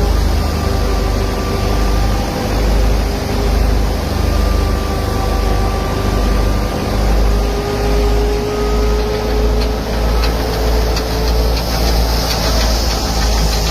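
Tractor-powered wheat thresher running steadily: a heavy low rumble that swells and fades about once a second, with a steady hum that wavers slightly in pitch.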